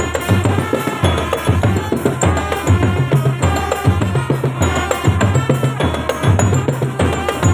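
Indonesian marching drum band playing: bass drums beating a steady rhythm under snare drums, with a melody from tuned instruments above.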